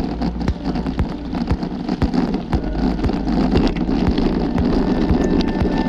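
Wind buffeting a handlebar-mounted camera's microphone, with tyre rumble from a road bike on rough asphalt and a light click about twice a second.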